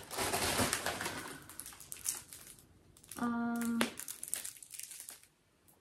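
Plastic wrapping crinkling and crunching as a plastic-wrapped roll of wall stickers is picked up and handled, with a short steady hum about three seconds in, then fainter rustling.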